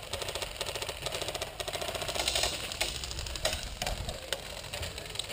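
Full-auto airsoft fire: a rapid, even mechanical clatter in a burst lasting about two and a half seconds, then a few scattered single clicks.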